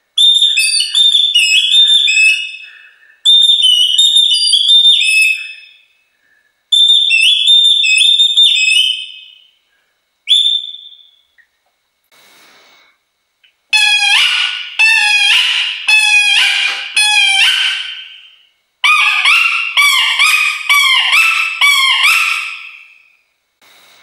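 Wooden bird calls blown by mouth, imitating birdsong: four short phrases of quick, high chirping notes, then, after a short pause, two longer phrases of rapidly repeated falling notes lower in pitch.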